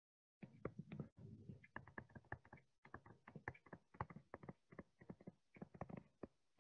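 Faint, irregular clicks and taps of a stylus writing by hand on a tablet screen, several a second.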